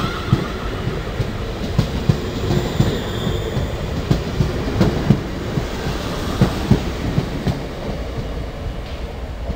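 London Midland Class 350 Desiro electric multiple unit running past at close range and drawing away, a steady rumble with its wheels clicking over the rail joints.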